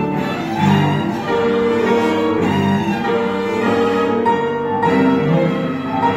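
Piano trio playing classical music: violin and cello bowing held, changing notes over a grand piano.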